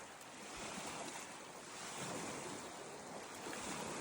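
Small waves washing in against the shore, rising and easing in gentle surges, with some wind on the microphone.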